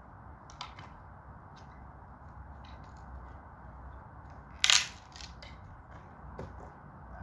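White bed frame boards being wrenched apart by hand: a few small creaks and clicks, then one loud sharp crack a little past halfway as a piece snaps off.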